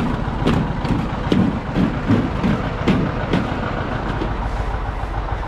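Engine of the lifting machine idling steadily, with a string of sharp clicks and knocks from hands working on a yard-light fixture to fit a new photoelectric switch.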